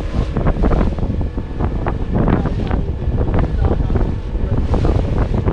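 Wind buffeting the microphone aboard a boat at sea: a heavy, continuous rumble broken by irregular knocks and splashes.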